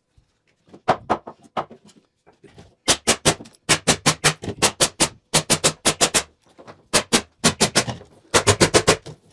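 Pneumatic sheathing nail gun firing nails through plywood into the wooden frame in quick runs of sharp shots, several a second, with short pauses between runs.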